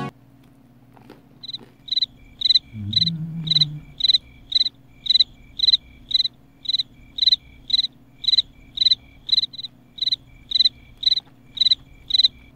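Cricket chirping in a loud, very even rhythm of about two chirps a second, used as the comic 'crickets' silence sound effect. About three seconds in there is a brief low murmur from a voice.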